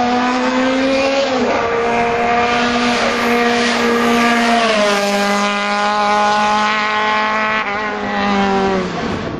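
Renault rally car engine at high revs, running hard at a steady pitch as it comes by, dropping in pitch once about a second and a half in and again near the middle as the car passes.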